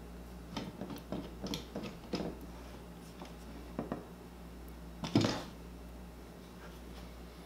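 The trigger of a one-handed bar clamp clicking several times as it is squeezed tight on an epoxied hickory handle and copper tube, with a few more clicks a little later, then a louder clunk about five seconds in as the clamped piece is set down on the wooden workbench.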